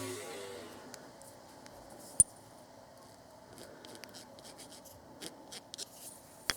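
A sharp metallic click about two seconds in, then a scatter of light ticks and clinks: small steel bolts being handled on a bench.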